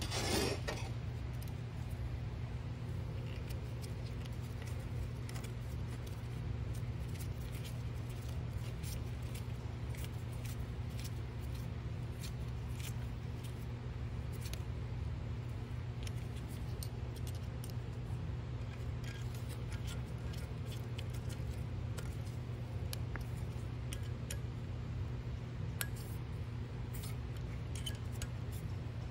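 Horizontal boring mill running with a steady low hum as it drives a 1-1/4-12 tap into a lead screw nut, with many small scattered metallic clicks over it.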